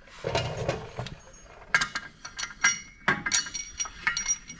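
Metal clinks and short ringing taps from a Can-Am Maverick X3's CVT clutch as the drive belt is worked onto the clutch sheaves by hand. After a duller scuff at the start, several separate clinks follow, the loudest a little under two seconds in and again around three seconds in.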